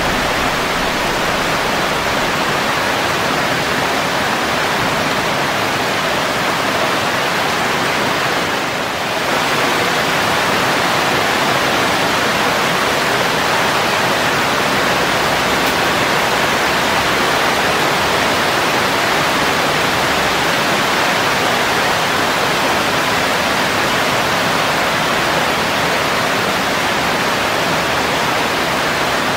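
Steady rain falling on leaves and plants, an even, continuous hiss with a brief slight dip about nine seconds in. No thunder is heard.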